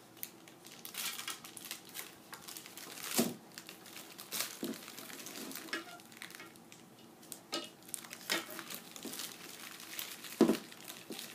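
Clear plastic wrap crinkling and rustling in irregular bursts as it is pulled and picked off a hockey stick blade, with a few sharper clicks. The loudest click comes about ten seconds in.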